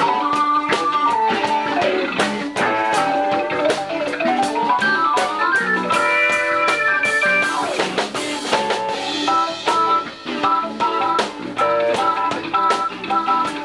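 Live band playing an instrumental passage on electric bass, drum kit and keyboard, with steady drum hits. About five seconds in, a quick run of notes climbs and then falls back down.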